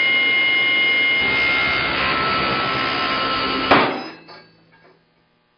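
SawStop Contractor Saw running with a steady whine as a hot dog is fed into the spinning blade. About three and a half seconds in, the safety brake fires with one sharp bang as its aluminum block slams into the blade, set off by the blade touching the hot dog standing in for a finger, and the saw dies away to silence within about a second.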